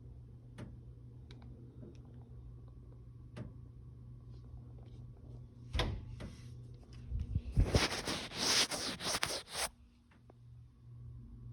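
Bangs and knocks from a condo ceiling, of unknown cause: a few faint ticks, one sharp knock about halfway through, then a rapid run of loud bangs lasting about two seconds, over a low steady hum.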